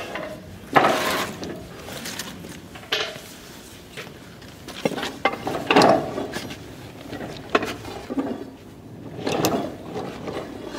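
Hand-worked hydraulic rail bender (a modern Jim Crow) bending a grooved steel tram rail: irregular metallic clanks and creaks from the pump handle and mechanism, every couple of seconds.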